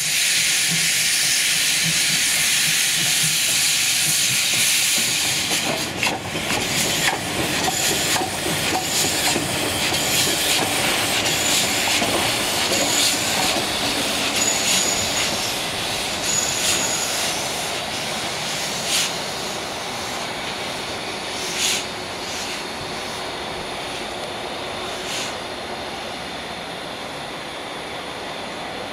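Steam locomotive (PKP class TKp 'Śląsk' 0-8-0T tank engine) moving slowly with steam hissing hard from around its cylinders, easing after a few seconds. Then short clanks and knocks from the moving engine, with short high squeaks about once a second for a while, and three sharper knocks near the end as it grows quieter.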